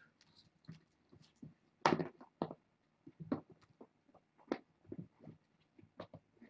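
Scattered light taps, knocks and rustles from kittens moving and playing on a fabric mat among their toys. The loudest knock comes about two seconds in, another about four and a half seconds in.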